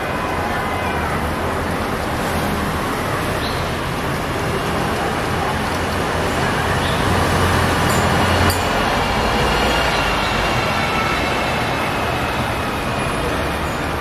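City street traffic: a steady rumble of passing vehicles that swells for a couple of seconds around the middle, with one sharp click about eight and a half seconds in.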